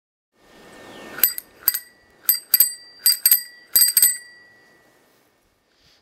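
A bicycle bell is rung about ten times in quick strikes, mostly in pairs, its bright ring dying away about a second after the last. A swelling whoosh leads into the first ring.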